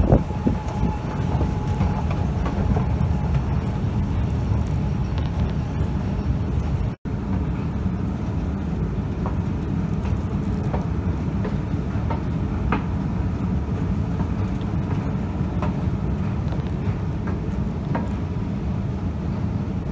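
Escalator running: a steady low rumble from the moving steps and machinery, with a few faint clicks. The sound cuts out for an instant about seven seconds in.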